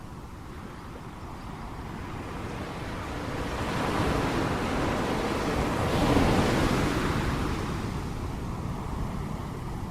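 Ocean waves: one wave builds, breaks and washes in, the surf at its loudest about four to seven seconds in, then draws back to a lower rumble.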